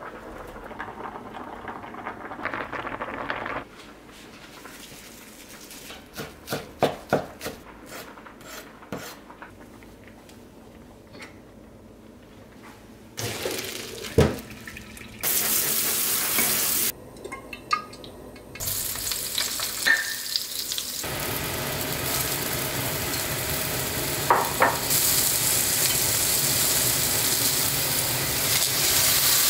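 Kitchen cooking sounds in sequence: a few light knocks, then a pot of spaghetti tipped into a stainless mesh strainer with a clank and a brief rush of water. From about two-thirds of the way through, eggplant, onion and carrot stir-fry in a wok with a steady sizzle, the longest and loudest sound.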